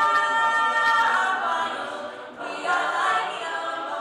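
A cappella group singing live: a woman sings a solo lead into a microphone over the group's unaccompanied backing voices, holding long notes.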